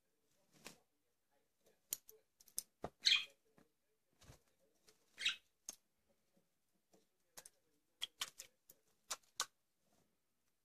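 A budgie bathing in a metal water bowl: short bursts of splashing and wing fluttering in the water, with scattered sharp clicks. The loudest splash comes about three seconds in, another about five seconds in, and a run of clicks near the end.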